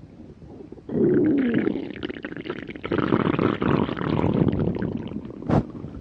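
A person's stomach growling. About a second in it starts with a loud falling growl, then goes on as gurgling rumbles, with a short pop near the end.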